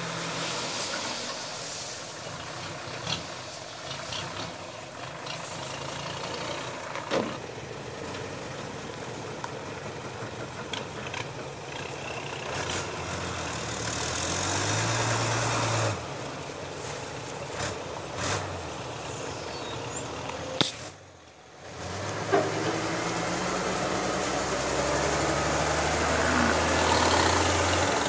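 Diesel dump truck engines running and revving while the trucks back up and tip their loads of soil. The engine note rises and falls, with a few sharp clicks and a brief drop-out about three-quarters of the way through.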